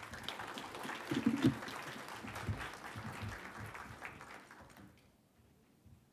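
Audience applauding, a dense patter of clapping that fades out about five seconds in.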